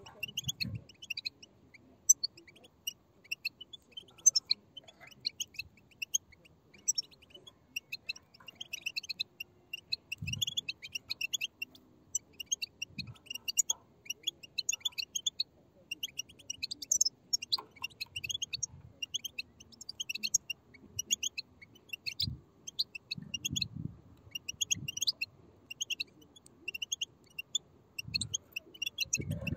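A group of European goldfinch chicks begging: a dense, continuous chorus of rapid, high-pitched chirping calls, with a few faint low thumps.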